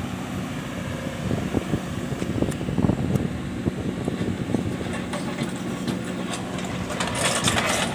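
Kobelco SK200 excavator's diesel engine running steadily under hydraulic load while its arm moves a steel sand-sieve frame, with scattered irregular knocks from the frame and bucket.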